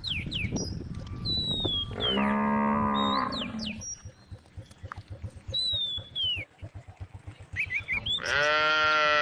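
A cow mooing twice: a call about two seconds in lasting under two seconds, then a louder one near the end. Small birds chirp with short high notes between the calls.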